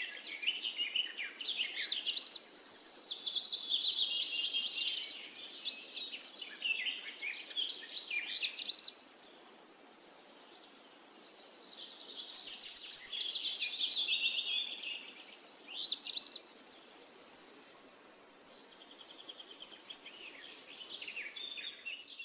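Woodland songbirds singing over one another in quick, high, warbling phrases, with several songs overlapping. The chorus thins to a quieter spell near the end.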